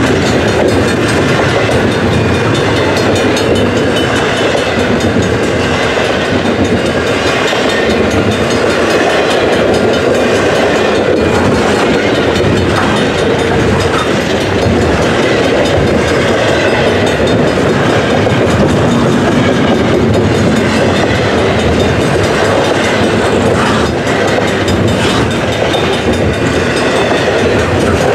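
Double-stack intermodal container cars of a long freight train rolling past close by: a loud, steady rumble and rattle of steel wheels on the rails, with a few faint knocks.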